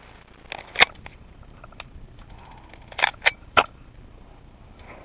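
Airsoft gunfire: scattered sharp cracks, the loudest about a second in, then three in quick succession around three seconds in.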